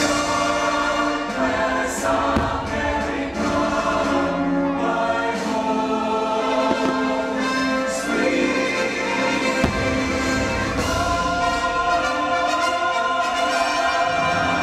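Choir singing over an orchestra, the fireworks show's patriotic soundtrack heard through the park's loudspeakers.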